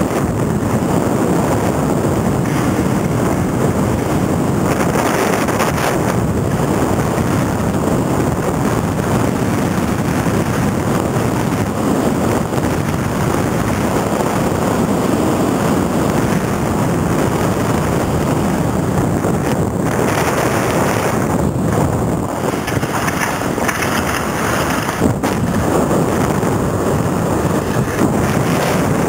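Wind rushing over the microphone of a camera carried by a skier moving downhill: a loud, steady rush of noise.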